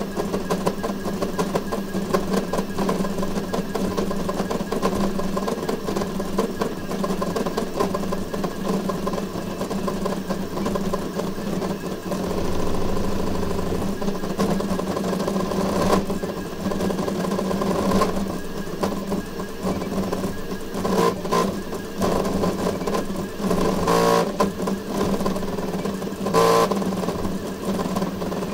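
Voron 3D printer printing a Benchy at speed-run settings (150k acceleration, 350 mm/s): its stepper motors buzz and whine in rapid, ever-changing tones as the toolhead darts about, over a steady hum. Several louder, short buzzes come in the last few seconds.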